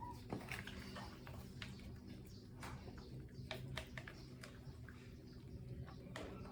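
A string of small, irregular clicks and taps over a steady low hum.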